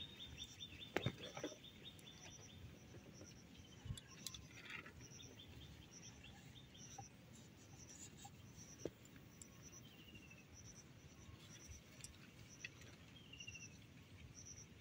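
Near silence with faint high chirps repeating about twice a second, like an insect calling, and a few short falling bird chirps in the second half. A few soft clicks come from the dough being handled.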